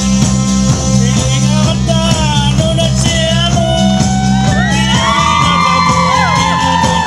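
Loud live band music with a steady drum beat, bass and electric guitar. Over it a man sings into a microphone, mixed with shouts and whoops.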